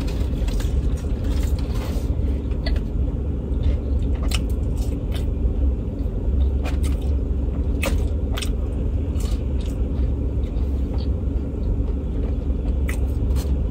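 Steady low rumble of a car engine idling, heard from inside the car, with scattered short clicks and taps.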